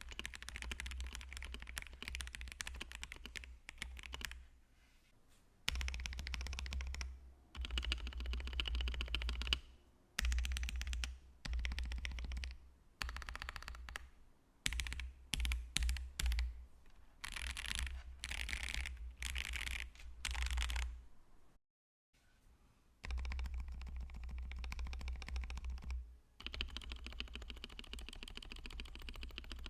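Typing on a mechanical keyboard fitted with Akko Starfish switches: quick runs of key clacks, broken by short pauses about 4 seconds in and again about 22 seconds in.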